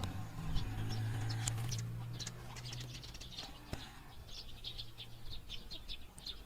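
Small birds chirping in quick, short, high notes, more of them in the second half, over a low steady hum that slowly fades away.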